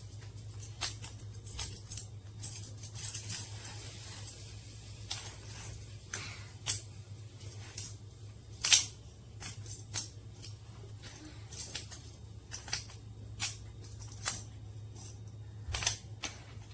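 Small magnetic building cubes clicking and snapping together as they are handled, in sharp irregular clicks, the loudest about nine seconds in, over a steady low hum.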